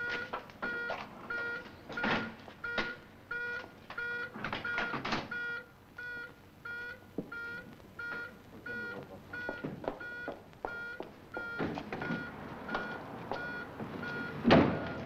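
Ambulance's electronic warning beeper sounding a fast, even beep, about three a second, while the stretcher is loaded with scattered knocks and clatter. The rear door is slammed shut near the end.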